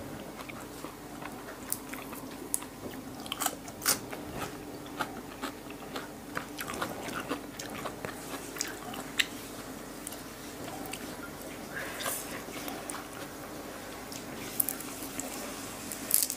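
Close-up mouth sounds of chewing raw beef liver and fresh herbs: wet clicks and soft crunches of leaves at irregular intervals.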